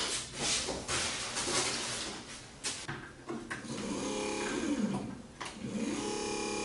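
Rattling and clicks of handling, then the Minn Kota trolling motor's electric motor, running without its prop on a freshly replaced armature and brushes, starts with a steady hum: briefly about four seconds in, then steadily from about six seconds on. It is working again after the rebuild.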